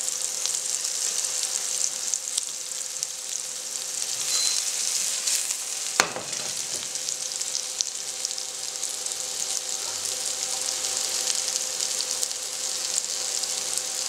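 Sliced shiitake mushrooms frying in hot coconut oil in a pan: a steady high sizzle with fine crackling. One sharp click about six seconds in.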